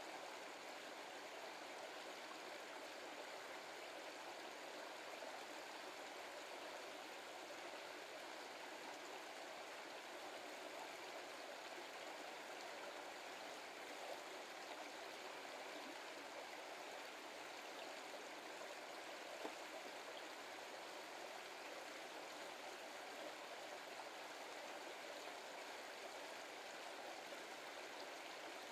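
A brook running steadily: an even, unbroken rush of flowing water.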